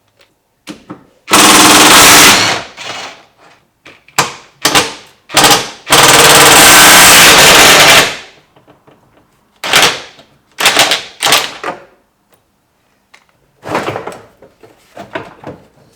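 Power impact wrench hammering out the 10 mm bumper bolts: two long, very loud bursts of about one and two seconds, with several short trigger pulls between and after them.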